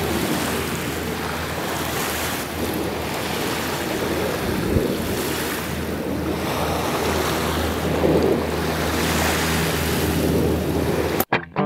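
Wind rushing over the microphone: a steady noise with slow gusts. It cuts off abruptly near the end.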